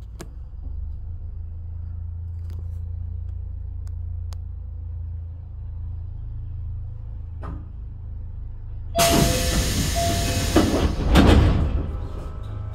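Stationary Keio electric train humming steadily, with a few faint clicks. About nine seconds in comes a loud hiss of compressed air with a couple of knocks, lasting about three seconds.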